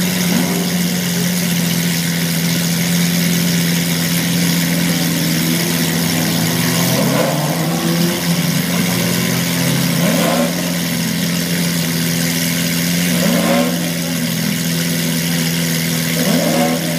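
Lamborghini Aventador's V12 engine idling steadily. A few faint, short sounds come over it in the second half.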